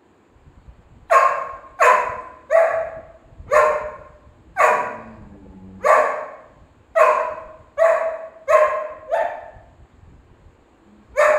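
A golden retriever barking repeatedly at another dog: about ten sharp barks half a second to a second apart, then a pause of about two seconds and one more bark near the end.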